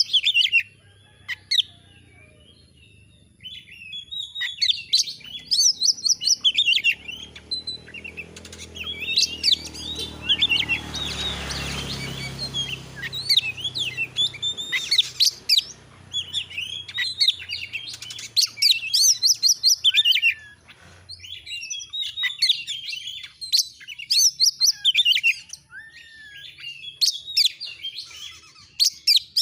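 Oriental magpie-robin (kacer) singing loud, fast phrases of chirps and whistled notes, with short pauses between phrases. A low rushing noise swells and fades about halfway through.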